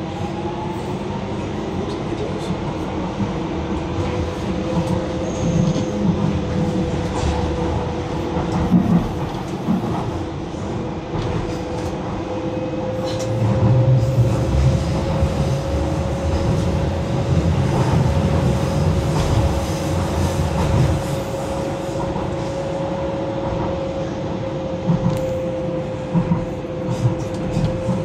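Docklands Light Railway train running, heard from inside the carriage: a whine that rises in pitch over the first few seconds and then holds steady, over the rumble of wheels on the track. The rumble grows louder from about halfway through for several seconds, with scattered clicks.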